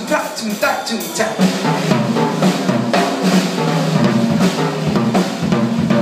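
A drum kit played live in a band, a busy run of stick hits on drums and cymbals, with a lower pitched part of the music growing stronger about a second and a half in.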